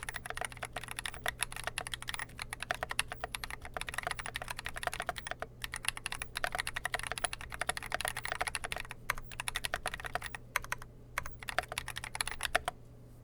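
Typing on a mechanical keyboard with lightly lubed Drop Holy Panda tactile switches and GMK Modern Dolch keycaps, a Dolch.CR board: a fast, dense stream of keystrokes that thins to scattered strokes in the last few seconds and stops just before the end.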